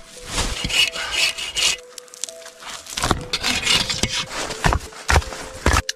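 Hand saw cutting wood with quick back-and-forth rasping strokes, in two runs with a short pause between them.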